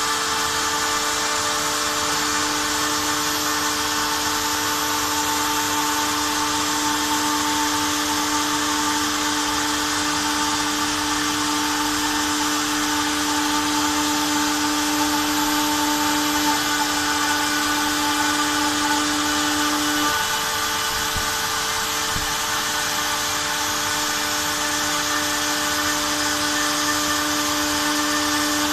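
Router spindle of a homemade CNC running steadily as its V-bit engraves lettering into a wooden board, a steady whine over a wide hiss, with a vacuum hose drawing off the dust at the bit. One lower tone in the whine drops out about two-thirds of the way through and comes back near the end.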